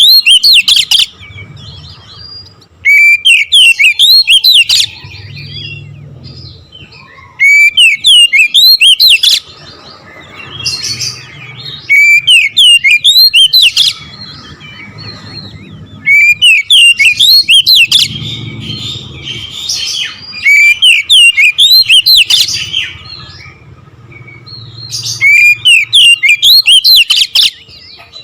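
Oriental magpie-robin (kacer) singing loudly in six bursts of rapid, sharp notes, each about two seconds long and coming every four to five seconds, with softer twittering between the bursts.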